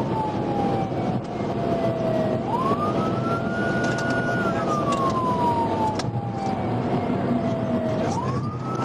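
Police cruiser's siren on a slow wail, heard from inside the car: the tone slides slowly down, then sweeps quickly back up and holds its high note, twice. Steady road and engine noise of the cruiser at pursuit speed runs under it.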